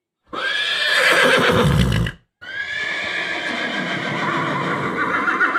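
Horse neighing twice: a call of about two seconds, then a longer one of about three and a half seconds with a wavering pitch.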